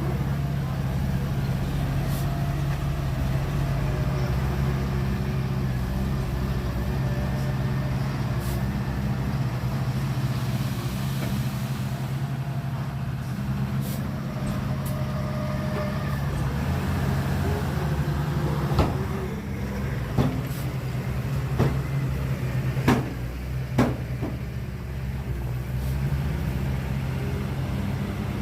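Heavy diesel engine of earthmoving equipment running steadily, with a handful of sharp knocks in the second half.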